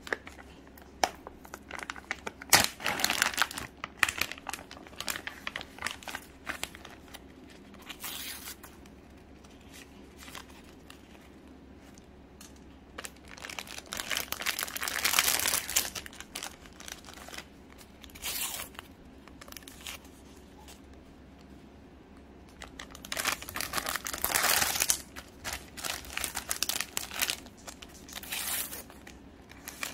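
Plastic snack-cake wrappers crinkling and tearing open in several irregular bursts of crackling and ripping. Near the end a small plastic sticker pouch is torn open.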